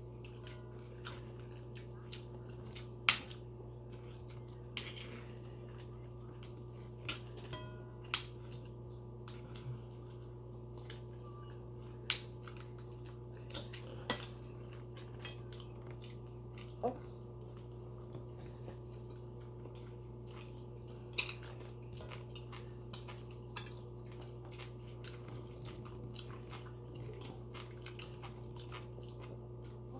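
Scattered light clinks of cutlery against ceramic plates during a meal, a dozen or so sharp isolated clicks, over a steady low hum.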